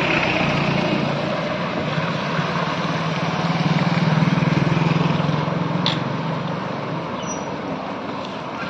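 Motor vehicle engine running steadily, louder in the middle and fading toward the end, over a wash of splashing as the vehicle drives through floodwater on the road. A sharp click comes about six seconds in.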